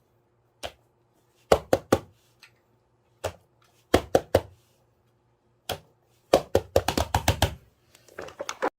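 Sharp knocks or taps by hand, mostly in threes with single taps between, then a quick run of about a dozen taps and a softer scratchy cluster near the end.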